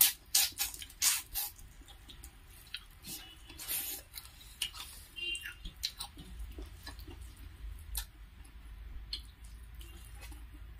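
Close-miked eating by hand: fingers squishing rice with chicken gravy and mouths chewing, as irregular short wet clicks and smacks, thickest in the first second or so.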